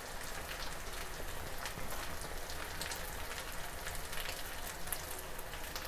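Onions and masala paste frying in hot oil in a wok, a steady sizzle with faint scattered crackles.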